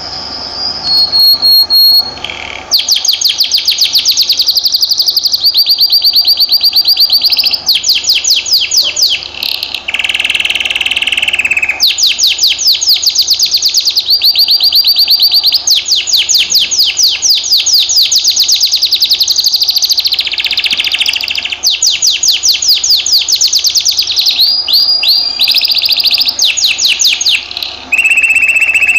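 Canary singing a long, loud, almost unbroken song made of rapid rolls: each phrase is a fast run of repeated high notes, and the song switches to a new roll every second or two, with one lower, buzzier phrase about ten seconds in.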